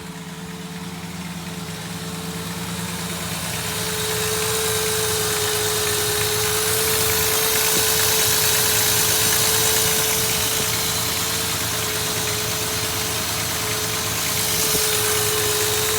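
A 1999 4.0-litre V6 idling with a ticking from the front of the engine, which the owner thinks sounds like lifters or valves; it has had this noise and a rough idle since a head and valve job. A steady whine runs over it, and the engine grows louder about four seconds in as the microphone gets closer.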